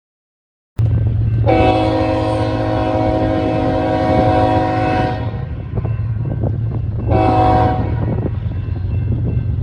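BNSF diesel freight locomotive sounding its air horn: one long blast of about three and a half seconds, then a short blast about two seconds later, over the steady low rumble of the locomotives' diesel engines. The sound cuts in suddenly just under a second in.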